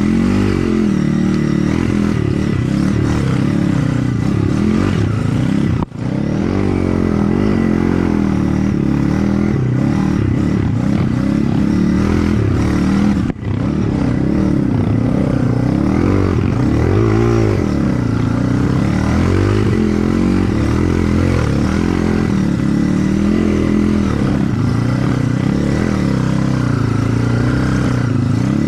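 Dirt bike engine running under the rider, its revs rising and falling continually as it picks its way along a rough forest trail, with the bike rattling over the ground. The sound cuts out briefly twice, about six seconds in and again about thirteen seconds in.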